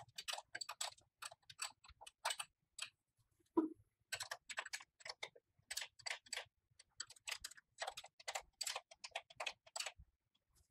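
Wrench tightening the motor's mounting nuts: a run of faint, uneven metallic clicks, with one duller knock about three and a half seconds in.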